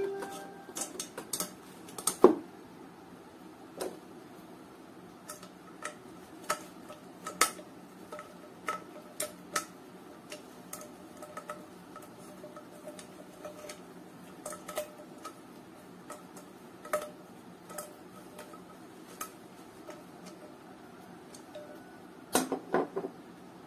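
Small screwdriver working the screw of a pan handle against the metal bracket of an aluminium kadai pan: irregular metal clicks and ticks, with a few louder knocks about two seconds in and near the end.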